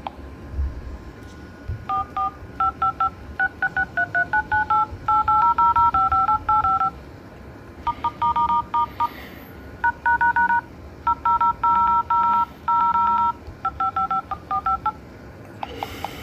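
Touch-tone (DTMF) dialer beeps from a Prestigio PMT 4238 4G tablet's speaker as digits are tapped on its on-screen phone keypad. The beeps come in two quick runs, with many repeats of the same digit and a pause of about a second between the runs.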